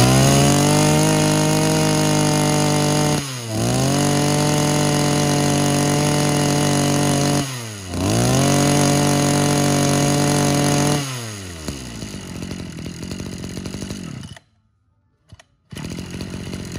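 Mitsubishi TL23 brush cutter's 23cc two-stroke engine revved up to a high, steady scream three times, each held about three seconds with a quick drop between, then let back down to a lumpy idle. Near the end the sound cuts out for about a second, and an idle like the first resumes.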